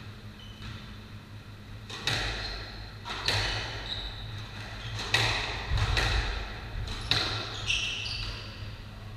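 Squash rally: the ball is struck by rackets and cracks off the court walls. Starting about two seconds in, sharp echoing hits come roughly once a second, with a few short shoe squeaks on the wooden floor between them.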